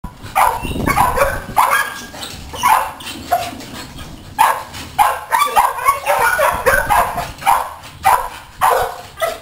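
Pit bull barking over and over, short sharp barks about one or two a second, the excited play barking of a dog reaching for a ball held up out of its reach.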